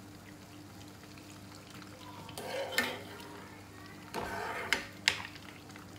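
Butter frothing and sizzling in a non-stick kadai in the last stage of clarifying into ghee, its milk solids settling as it turns clear. A steel slotted spoon stirs through it and scrapes the pan twice, about two and a half and four and a half seconds in, with sharp clinks.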